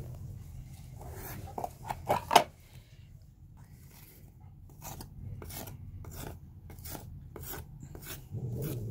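Putty knife scraping and smoothing wood putty over a chewed door frame: a few sharp knocks and scrapes around two seconds in, then a run of short scraping strokes, about two a second, from about five seconds in.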